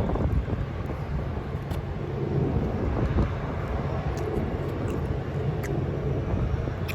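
Steady low outdoor rumble with wind on the microphone, and a few faint clicks.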